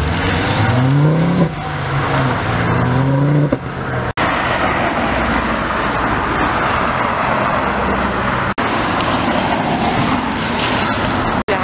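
Cars pulling away hard one after another. First a white Ford Focus hatchback revs up, its pitch rising, dropping at a gear change, then rising again. Then cars pass close by with a steady rush of engine and tyre noise on a wet road, cut short at each edit.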